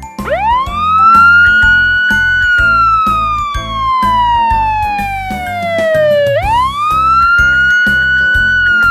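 Police car siren wailing twice: each time the pitch sweeps up quickly, holds high for a couple of seconds, then slides slowly down, over background music with a steady beat.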